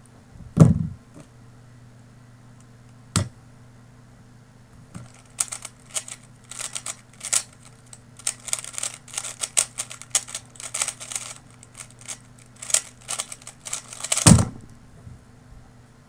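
3x3 speedcube being solved at speed by hand: about nine seconds of fast, irregular plastic clicking and clattering as its layers are turned, ending in a loud thump as it is put down. A thump just after the start and a single click about three seconds in come before the turning.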